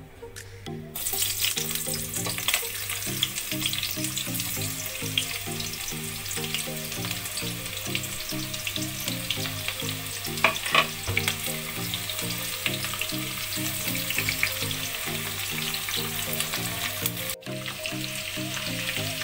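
Sliced onions sizzling and crackling as they fry in hot oil in a kadhai; the sizzle starts suddenly about a second in as the onions go into the oil. Near the end a spatula stirs them around the pan.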